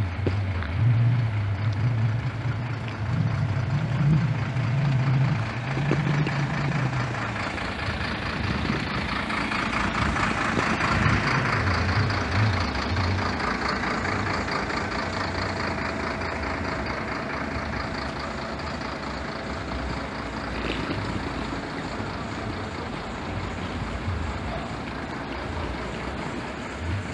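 Bus station ambience: bus engines running, with a low rumble over the first few seconds and a swell of vehicle noise peaking about ten to twelve seconds in.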